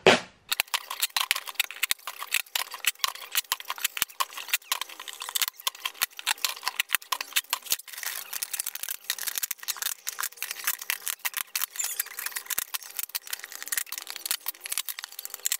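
Clear IKEA Samla plastic storage box lids being handled and shuffled: a steady run of quick light clicks, taps and rustles of thin plastic.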